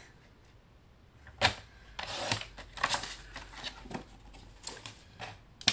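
Sliding paper trimmer and cardstock being handled: a sharp click about a second and a half in, then a run of light clicks and paper rustles.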